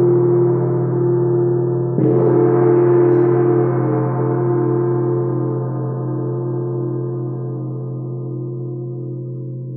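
A large struck metal instrument of sound-healing music: a fresh stroke about two seconds in, then deep, many-toned ringing that wavers and slowly fades.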